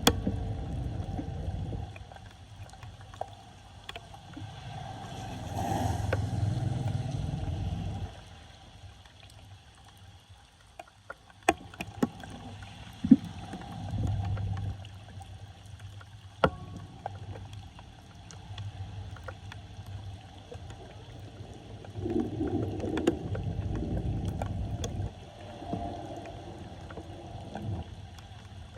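Floodwater sloshing and gurgling in surges that swell and fade, with a few sharp knocks.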